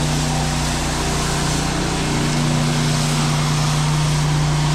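Pressure washer running while its jet rinses a garage door: a steady engine drone under the constant hiss of the water spray.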